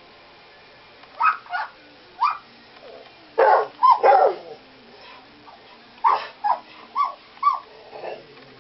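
Pet bird imitating a small toy-type dog's bark: about ten short, yappy barks in irregular bunches, densest around the middle.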